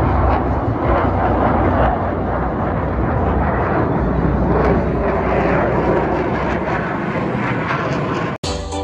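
Jet aircraft engine noise, a loud steady rushing roar as a military jet flies past overhead. It gives way abruptly to music near the end.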